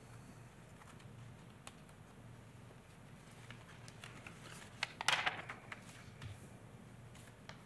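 Papers being handled at a table during quiet room tone: scattered small clicks and light rustles, with one louder rustle of paper about five seconds in.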